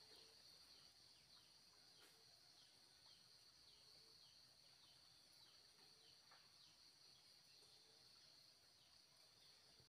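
Faint outdoor night ambience: a steady high-pitched insect chirring, with scattered short falling chirps over it. It stops abruptly just before the end.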